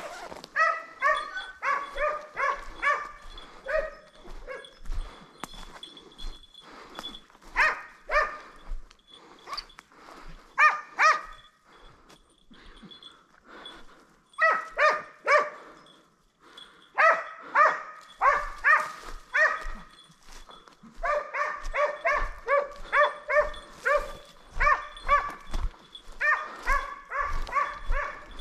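Kopay scent hound baying in runs of repeated barks, about three a second, in bouts broken by short pauses, as it gives voice on a hare's trail.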